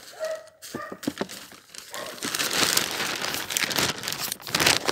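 Clear plastic bag crinkling and rustling as grass clippings are tipped into it from a lawn mower's plastic grass box, getting louder about two seconds in.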